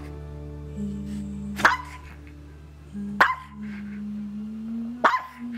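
Maltese dog barking three times, single sharp barks about a second and a half apart, over background music. It is barking because it dislikes having its eye gunk combed out.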